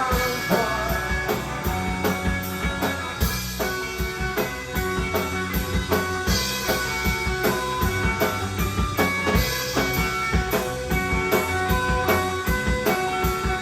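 Instrumental passage of an indie rock song: guitars over a drum kit keeping a steady beat, with no singing.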